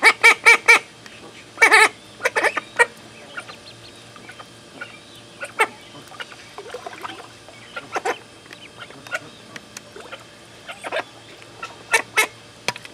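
Call duck hen quacking in quick runs of loud calls: four in a row at the start, more about two seconds in and again near the end. Quieter thin peeping from four-day-old call ducklings comes in between.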